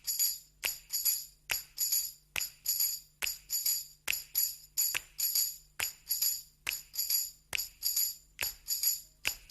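Tambourine-like metal jingles shaken in a steady, even rhythm, a little over two shakes a second, each shake ringing briefly. No other instrument plays with it.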